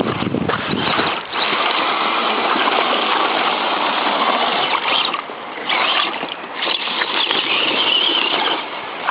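Water splashing and rushing as a radio-controlled scale crawler truck drives through creek water, a dense steady wash of noise that dips briefly a few times.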